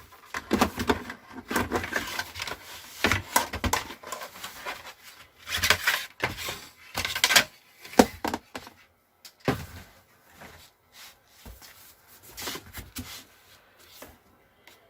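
The plastic back cover of an LED TV being taken off by hand: irregular clicks, scrapes and knocks of plastic and tools being handled, busier in the first half and sparser later.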